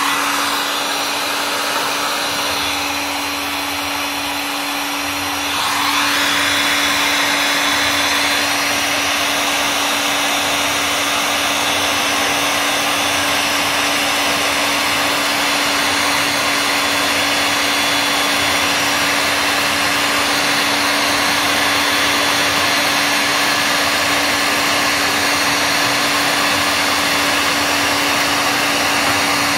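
Electric heat gun blowing hot air onto a heat-shrink sleeve over a metal detector coil connector, shrinking it in place. A steady fan rush carries a constant motor hum, and it gets louder about six seconds in.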